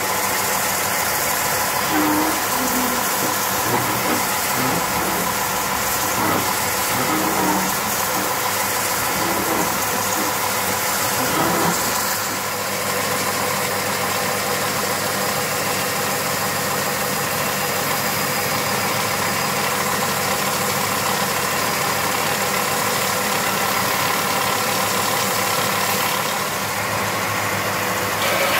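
Charnwood BD610 belt and disc sander running steadily on its 750-watt induction motor, as wood is pressed against the 6-inch sanding belt, flat on the belt and then over the radiused top drum.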